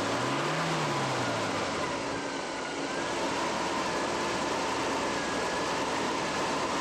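Truck engine running, fed on white gasoline vapor through a ducted intake. Its pitch rises and falls once about a second in, then it runs steadily.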